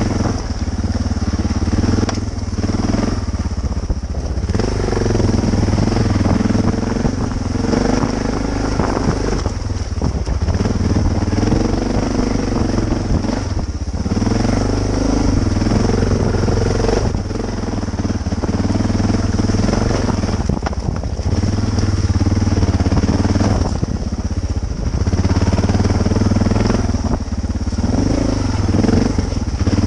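Dual-sport motorcycle engine riding a rough dirt trail. The throttle is opened and rolled off over and over, so the engine note keeps rising and dropping every few seconds.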